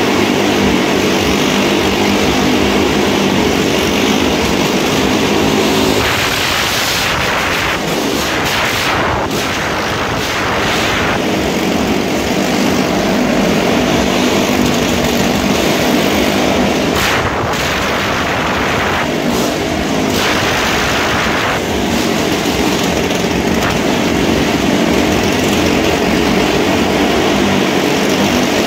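Several motorcycle engines running at steady high revs as the bikes circle the vertical wooden wall of a wall-of-death drum, a loud continuous drone whose tone shifts a few times as the bikes pass.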